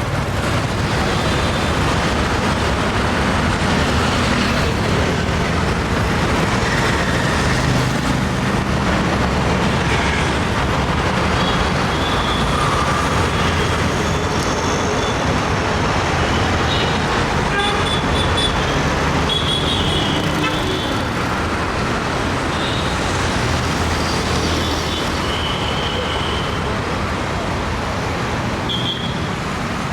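Busy city road traffic: a steady mix of engines and tyre noise, with vehicle horns honking several times in short beeps over it.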